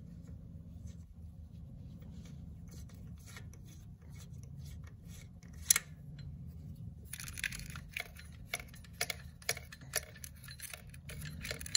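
Ratchet socket wrench with a 12 mm socket loosening an engine bolt: scattered short metallic clicks, one sharp click about halfway through, then a quicker run of clicks in the second half, over a steady low hum.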